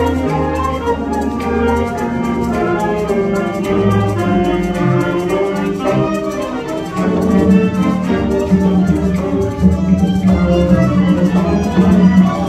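Symphony orchestra playing live, the bowed strings (violins, cellos and double basses) to the fore. The music swells louder about seven seconds in, over a strong held low note.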